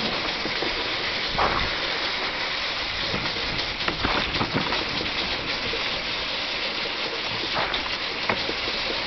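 Sled runners hissing steadily over snow and ice, with a few sharper scrapes along the way.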